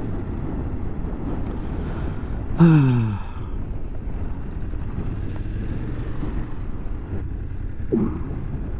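BMW motorcycle engine running at low speed with wind and road noise, the bike rolling on a front tyre just blown by a pothole. About two and a half seconds in, a brief louder sound that falls in pitch.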